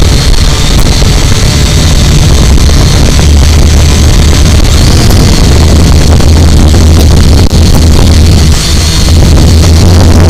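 Quadcopter drone's motors and propellers running steadily in flight, picked up by the onboard camera so loudly that the sound is distorted, with a steady high whine over a deep drone.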